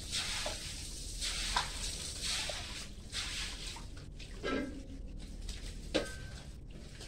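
Water from a garden hose splashing onto a wet concrete floor, in uneven swells of hiss, with a couple of sharp clicks.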